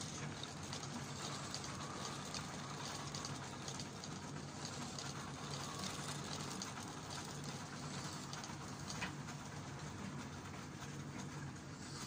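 Model train of tank wagons running on the track: a steady hum with light wheel clicks and rattle over the rail joints.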